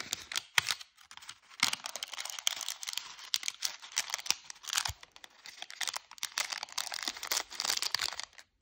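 Parchment paper crinkling and crackling in quick irregular clicks as it is folded and creased by hand into fortune-cookie shapes.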